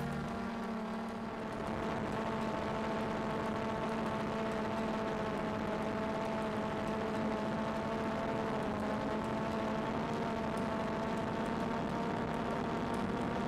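DJI Phantom 2 quadcopter's motors and propellers whining steadily in flight, picked up by the onboard microphone of the FPV video link, with a haze of wind noise under the hum.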